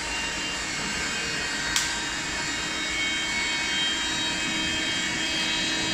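The wood-fired oven's electric forced-air blower (its 'dragon's breath' air system) running steadily, a constant rush of air with a faint whine in it. It is blowing oxygen up into a freshly lit firelighter-and-kindling fire to get it going fast. A single sharp click comes a little under two seconds in.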